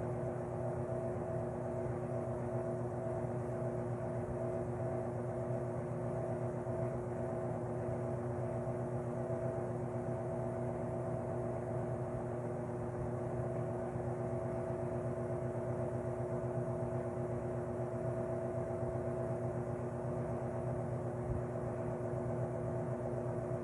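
Vintage Lakewood P-58 box fan motor running steadily, turning a 20-inch LAU 60263801 propeller blade: a constant electric-motor hum of several tones over an even rush of air.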